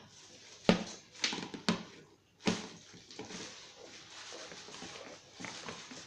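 Homemade slime being worked in a bowl: four wet smacks and squelches in the first two and a half seconds, then steadier squishing and scraping.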